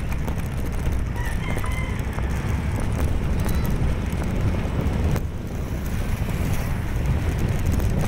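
Motorcycle on the move: a steady, dense low rumble of engine and road noise mixed with wind buffeting the microphone.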